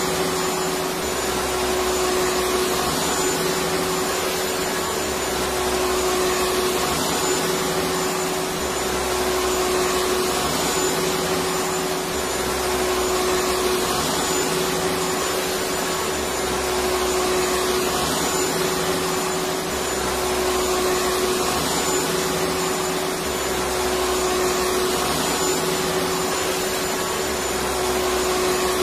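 Electric vacuum cleaner running steadily: an even rush of air with a constant motor tone, and a faint low pulse that repeats about every two seconds.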